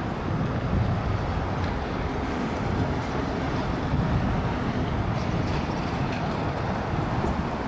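Steady outdoor city noise: the low rumble of traffic on an elevated expressway, with wind buffeting the microphone.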